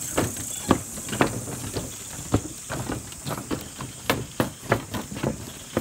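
Footsteps knocking on a bridge deck as several people walk across it: an irregular run of sharp knocks, two or three a second. Behind them runs a steady high-pitched chirring of night insects.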